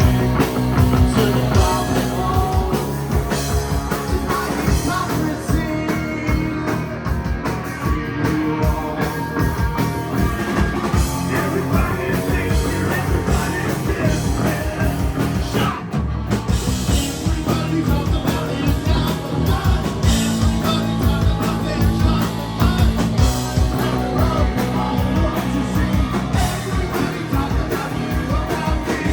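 Live rock band playing with distorted guitars, bass and drum kit, and a singer's voice in the mix.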